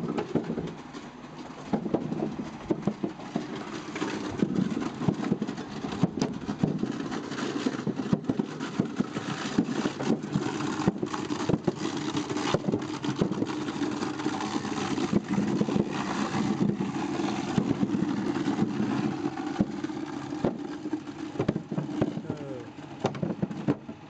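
Homemade apple scratter (a drum studded with screws) running, a steady machine hum under irregular knocking and clatter.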